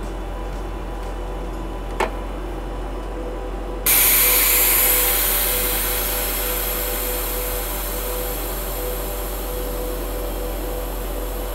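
Plasser GRM3000T tamping machine humming steadily with its engine running. A click about two seconds in, then a sudden loud hiss of escaping air about four seconds in, which slowly fades but keeps going, as the rear buggy is let down onto the rail.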